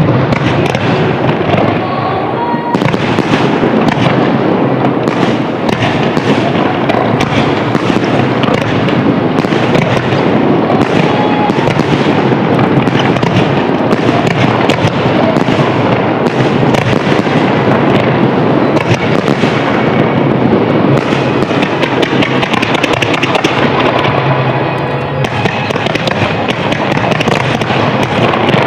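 Fireworks shells bursting overhead in a dense, unbroken barrage of bangs and crackling, easing slightly for a moment near the end.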